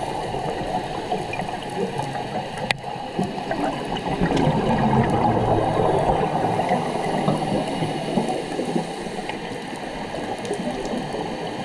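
Scuba diver's exhaled air bubbles gurgling underwater, with one sharp click a little under three seconds in.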